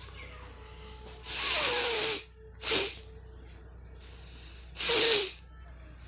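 A person blowing their nose hard three times: a long blow of about a second, a short one right after, and another shorter blow near the end. Each is a hissy rush of air with a falling nasal tone.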